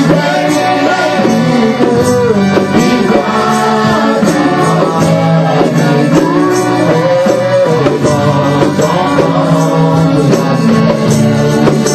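Gospel worship music: singing voices over steady bass notes and an even percussion beat.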